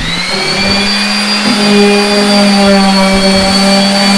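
Electric random orbital sander spinning up with a quick rising whine, then running steadily with its pad against the wood of a cabinet frame.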